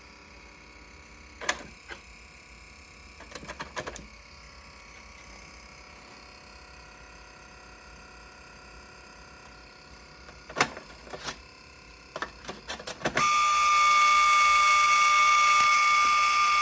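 Atari SF354 3.5-inch floppy disk drive making horrible noises: scattered sharp clicks and short rattling bursts from the drive mechanism, then about 13 seconds in a sudden, much louder steady high-pitched whine with hiss that holds nearly to the end.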